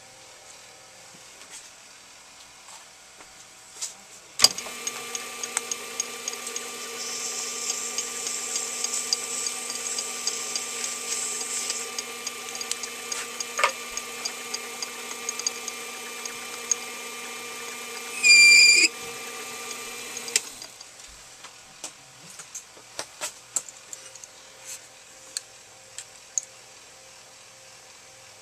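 Benchtop metal lathe switched on about four seconds in, running with a steady whine for about sixteen seconds while turning an aluminum bar-stock blank. A brief shrill squeal comes near the end of the run, then the lathe stops, and light metallic clicks follow as tools are handled.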